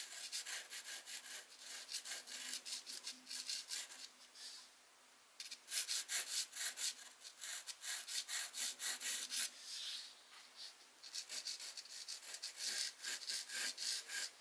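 Charcoal pencil scratching across a canvas sheet in quick back-and-forth sketching and shading strokes, pausing briefly twice.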